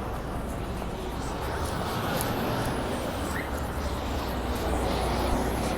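Busy city street ambience: a steady low rumble of traffic mixed with the voices of passers-by.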